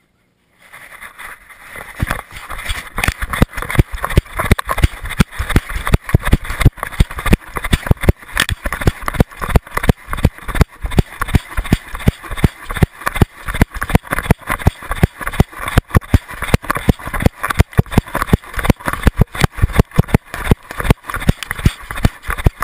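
Action camera strapped to a trotting dog: rapid, regular thumps as each stride jolts the camera, about three a second, over a steady rubbing hiss from the mount. Starts just under a second in.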